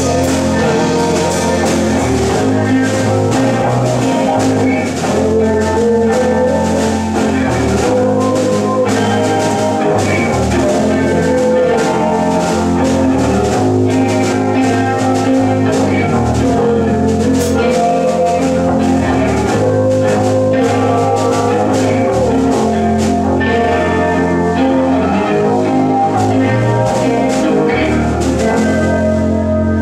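Live rock band playing: electric guitar, electric bass and drum kit with cymbals. Near the end the drums stop and the guitars and bass ring on.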